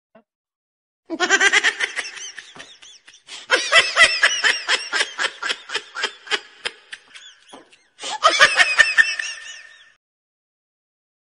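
A laughing sound effect: quick, rhythmic giggles in three runs, with short gaps of complete silence between them.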